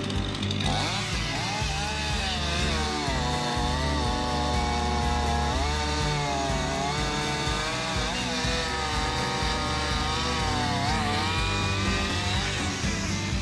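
Chainsaw engine running under load, its pitch dipping and recovering again and again as the chain bites into and clears the wood.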